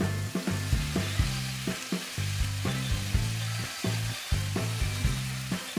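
Background music with a steady beat and bass line over chicken, lotus root and sweet potato sizzling in a frying pan.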